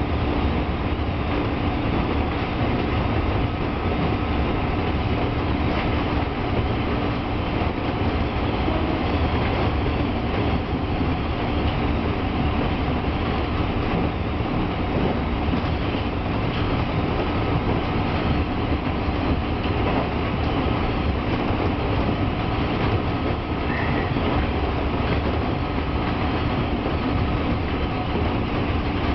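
JR East 201 series electric train running steadily along the track, heard from inside the front of the train: an even running noise of wheels on rails and the train's equipment.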